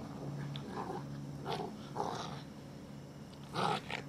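Six-week-old Sarplaninac puppies play-fighting, giving several short growls and yips, the loudest near the end.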